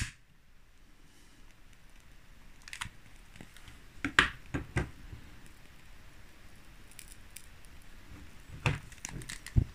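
Quiet handling sounds while a tin candle of wax and rolled cardboard is lit with a stick lighter: a sharp click right at the start, then scattered light clicks and knocks, with a cluster about four seconds in and more near the end.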